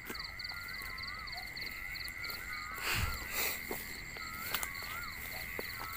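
Dusk chorus of field insects, a steady high buzz and a fast pulsing chirp, with short rising-and-falling animal calls repeating over it. A rustle with a low thump comes about three seconds in.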